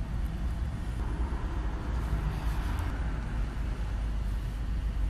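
Steady low rumbling noise, swelling slightly about two to three seconds in.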